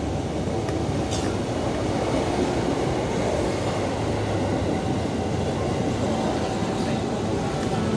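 Steady low rumble of a motorcycle riding slowly: engine and road noise.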